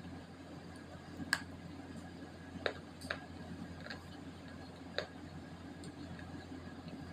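Five short, sharp crunching clicks, the first the loudest, as a dried chunk of multani mitti clay is bitten, over a steady low hum.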